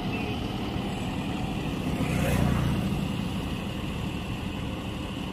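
John Deere 5405 CRDI common-rail diesel tractor running steadily under load as it pulls a rotavator through a flooded paddy field, heard from a distance, swelling briefly about two seconds in.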